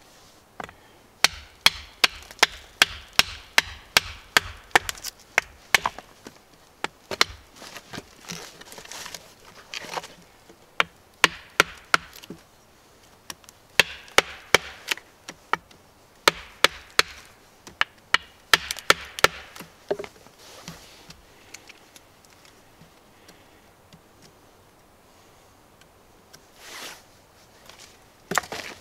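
Knife being batoned through dead wood: a wooden baton knocking on the spine of a fixed-blade knife to split the wood. The knocks come quick and sharp, about two to three a second, in runs of several seconds with short pauses, and a quiet spell about two-thirds of the way through.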